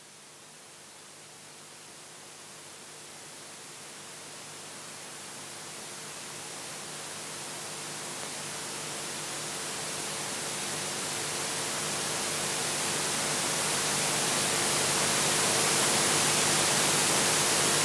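Steady hiss of room tone and recording noise, with a faint low hum. It swells gradually for about fifteen seconds, then holds level near the end, as a recorder's automatic gain does when it turns up the room noise in a pause in speech.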